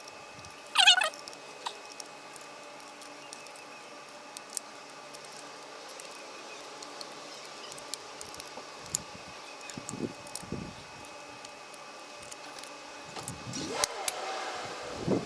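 A cat meowing: one short, loud call about a second in and another drawn-out call near the end, over faint scattered clicks and rattles.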